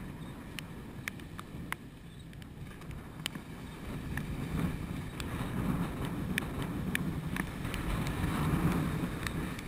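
Storm surf breaking against a rock jetty, with wind buffeting the microphone. The rumble of the waves builds from about four seconds in and is loudest near the end, as a wave crashes and sprays over the boulders; scattered sharp ticks run through it.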